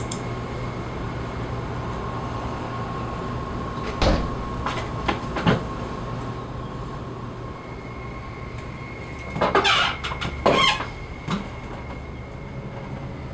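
Sharp bangs from elsewhere in a house over a steady background hum: two single knocks about a second and a half apart, then a louder cluster of bangs a few seconds later.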